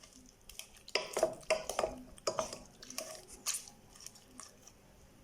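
A utensil knocking and scraping in a saucepan, in irregular short strokes, as cooked fruit and garlic with olive oil are mashed into a paste.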